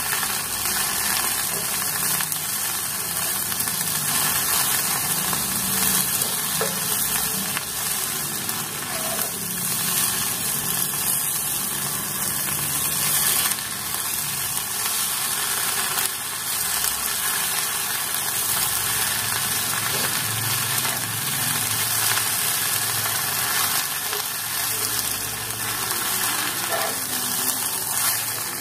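Sweet potato leaves sizzling steadily as they are stir-fried in a pan and stirred with a spatula.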